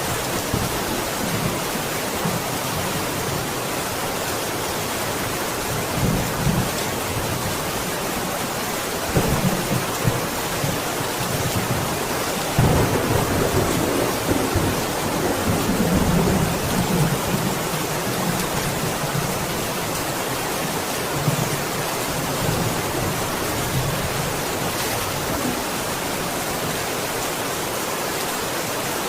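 Steady heavy rain with rolls of thunder rumbling in several swells, the longest from about twelve to seventeen seconds in.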